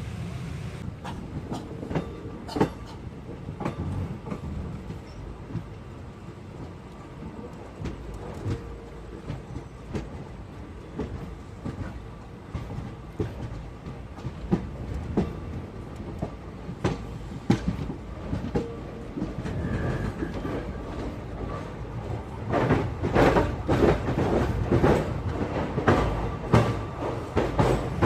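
Passenger express train running on the rails: a steady rumble with the wheels clacking over rail joints, the clacking louder and more frequent in the last few seconds.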